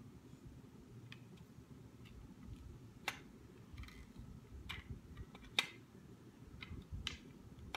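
Scattered light clicks and taps, four sharper than the rest, of recurve bow limbs being handled and fitted into the riser's limb pockets.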